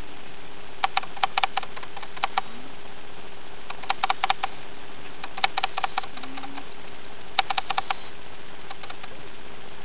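Meerkats playfighting, giving short clicking calls in quick runs of four to six, with several pauses between runs. A steady low hum runs underneath.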